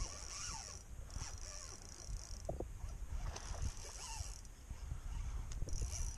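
Spinning reel being cranked against a hooked fish, its rotor and gears making a zipper-like whirring.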